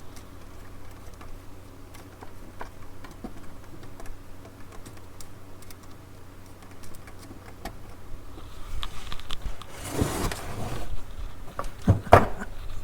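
Small clicks and handling noises from work on the receiver test setup over a faint steady low hum, building into louder rustling with a few sharp knocks over the last few seconds.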